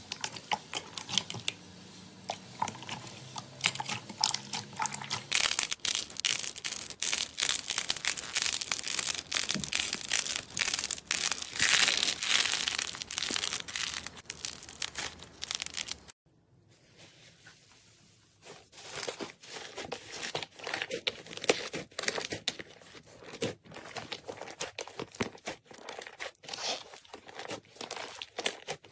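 Fluffy clay slime being squished, stretched and pulled apart by hand: dense sticky clicking and crackling. It drops away briefly a little past halfway, then starts again.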